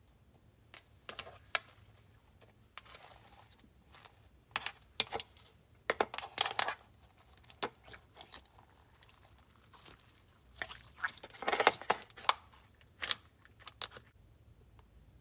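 Clear glitter slime being worked by hand, giving irregular sticky crackles and pops in bunches, the loudest bunches about halfway through and again near the three-quarter mark.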